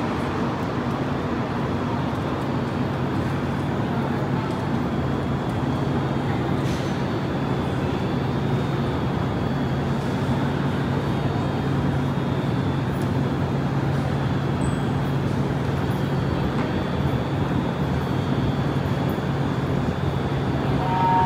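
Steady hum and rumble of a busy metro platform, with a constant low hum and an even level throughout.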